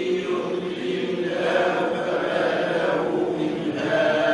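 A group of voices reciting a Quran verse in unison, chanting it slowly together as they repeat it after the teacher in a memorisation lesson.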